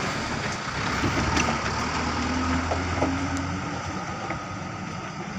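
Truck engine running at a low, steady rumble, growing gradually quieter.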